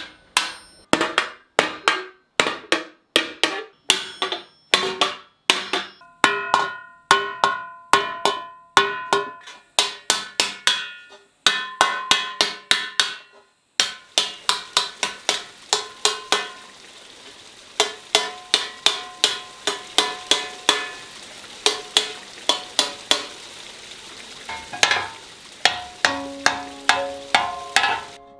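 Hand-hammering of a copper sheet over a metal stake: a steady run of sharp blows, about two to three a second, each ringing briefly with a metallic tone, as the sheet is raised into a pot without welding. The blows stop for a moment about fourteen seconds in, then resume.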